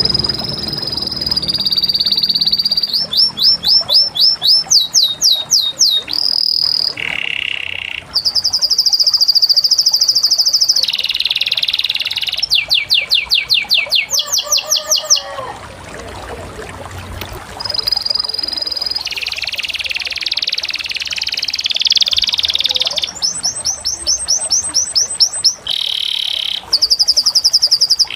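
Canary singing: high-pitched rapid trills and rolling runs of repeated notes, switching to a new phrase every second or two.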